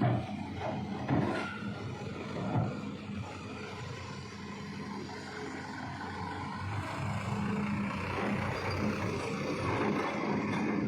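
Motor vehicle engines running as traffic moves slowly past, a steady hum with a few louder knocks in the first few seconds.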